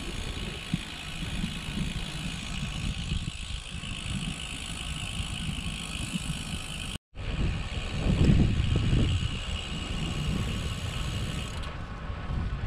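Riding sounds of a Lynskey R300 titanium road bike on a paved trail: steady tyre and wind rumble on the handlebar microphone with a steady high buzz over it. The sound cuts out for a moment about seven seconds in, and the rumble swells briefly just after.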